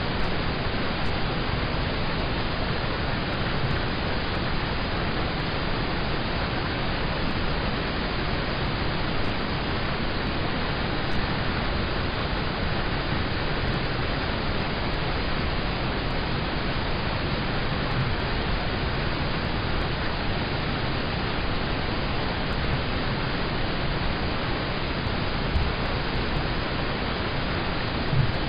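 Rain falling on a car, heard from inside the cabin: a steady, even hiss of rain on the roof and glass, with a soft low knock near the end.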